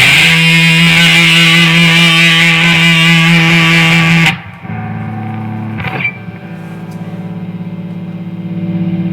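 Fuzz-distorted electric guitar through a Marshall DSL 40C tube amp, sustaining one loud held note for about four seconds and then cut off abruptly. After that, a steady buzzing hum with hiss keeps going from the high-gain fuzz pedal and amp: the noise that a noise gate is meant to remove.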